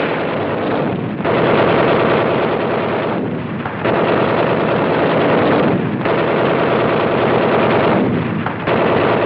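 Machine-gun fire in long bursts of rapid shots, about four bursts of roughly two seconds each with short breaks between, raking the water of a lagoon.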